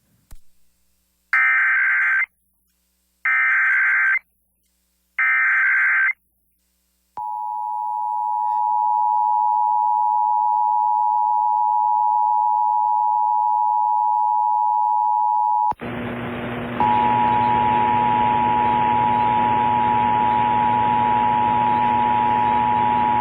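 Emergency Alert System test tones. First come three SAME header data bursts, each a warbling electronic screech about a second long. Then the steady two-tone attention signal plays. About halfway through it cuts out briefly, and the attention tone comes back over a loud hiss and hum.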